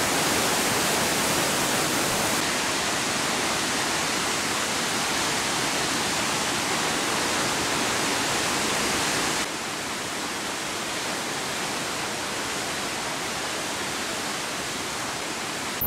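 Lisbon Falls waterfall rushing: a steady noise with no distinct events, dropping a little in level about nine seconds in.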